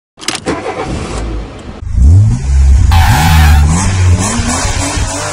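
Revving car engine sound effect for a logo intro: a few clicks, then about two seconds in a loud rev that rises and falls, with a burst of hiss about a second later.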